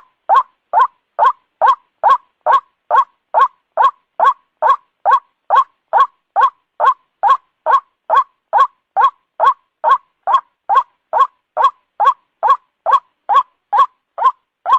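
White-breasted waterhen (ruak-ruak) calling: short, loud, identical notes repeated at an even pace of about two and a half a second, a looped lure call used to draw the birds in.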